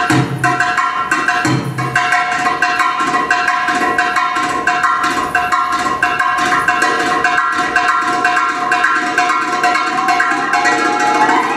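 Middle Eastern drum-solo music: a goblet drum (Egyptian tabla/darbuka) plays a quick rhythm over a held melodic tone, with a few deep drum strokes in the first couple of seconds. Near the end a melody slides upward.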